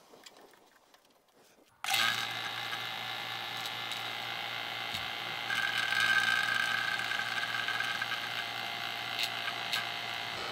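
Two-stage rotary vacuum pump switched on about two seconds in and running with a steady hum, a little louder for a couple of seconds in the middle. It is pulling vacuum on a mini-split's line set through the manifold gauges. The owner later found that a Schrader valve, left undepressed, shut the pump off from the system, so it evacuated only the manifold and hoses.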